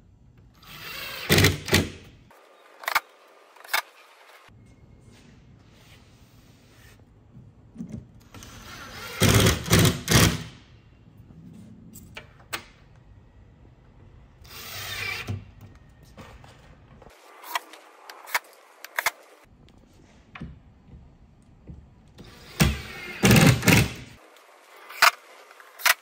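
Cordless drill driving screws into wooden cabinet panels in four short bursts of about a second each, with sharp knocks and clicks from the panels and parts being handled between the bursts.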